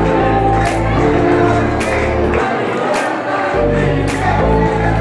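A Hindu devotional song playing loud, with singing over a deep bass line and a sharp, cymbal-like strike about every second, and crowd noise beneath.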